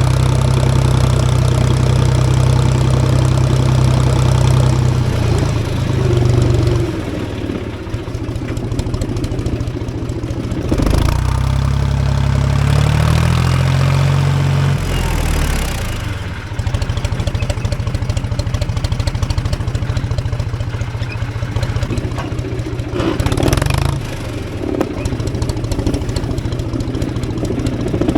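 Tractor engine running steadily. About a third of the way in its note drops and changes in steps, then it settles back to a steady run, with a couple of short knocks along the way.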